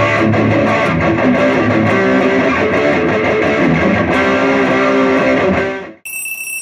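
Intro music led by electric guitar, loud and steady, cutting off about six seconds in. A steady high-pitched electronic beep follows it.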